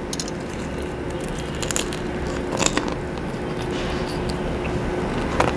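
Close-up biting and chewing of crispy fried chicken (Jollibee Chickenjoy): a few short crunches of the breading, spaced about a second apart, over steady background noise.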